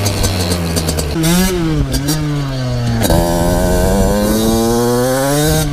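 Two-stroke motocross bike engine being ridden, its revs falling off, blipping up and down about a second in, then climbing steadily under throttle for the last half.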